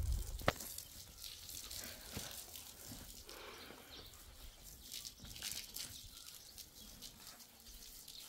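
Water spraying from a garden hose and splashing onto a concrete floor, a steady hiss with small splatters. A single sharp click comes about half a second in.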